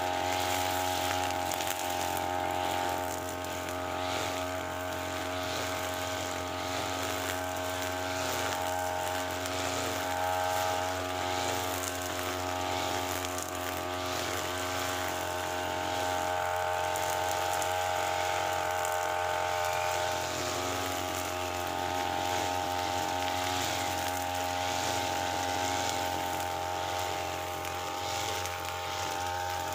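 UM328 brushcutter engine running steadily at high speed, a continuous drone, as its 2.4 mm nylon line cuts grass down to the ground.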